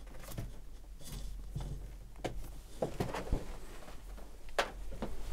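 Faint, scattered clicks and knocks of a USB cable plug being handled and pushed into the USB ports of a laptop and a small MIDI keyboard, the most distinct one a little over four and a half seconds in.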